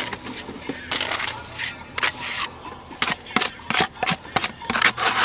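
Steel trowel working cement mortar against clay roof tiles: a run of short scrapes and clicks of metal on mortar and tile, with longer scrapes about a second in, at two seconds and near the end.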